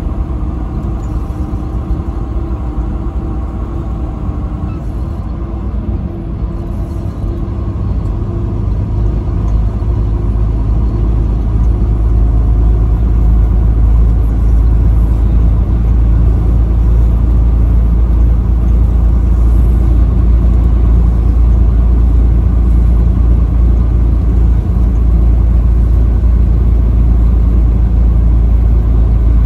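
Highway driving noise from a moving vehicle: a steady low rumble of engine and road, growing louder over the first dozen seconds and then holding.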